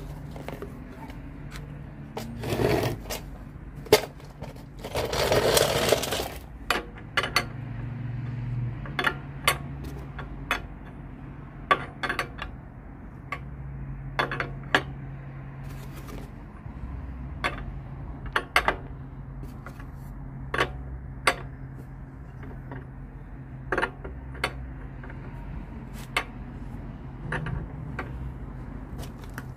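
Irregular sharp metallic clicks and clinks of hand tools and metal fittings as threaded fittings are screwed into a plastic-tanked radiator, with a short scrape twice near the start, the louder one about five seconds in.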